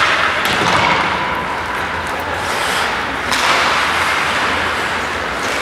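Ice hockey play on the rink: skate blades scraping and carving on the ice, with a few sharp clacks of sticks and puck.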